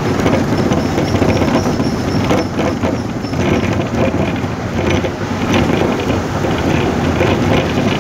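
Rain falling on a moving vehicle, mixed with its road and engine noise, heard from inside the vehicle: a steady rush with many small crackles.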